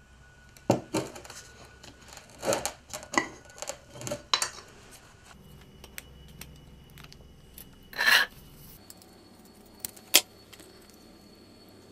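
Small handling noises on a workbench: a run of clinks and knocks from a glass jar and a shallow metal tin lid in the first four seconds or so. Then a longer scrape about eight seconds in and a sharp click about ten seconds in, as scissors cut the cloth wick.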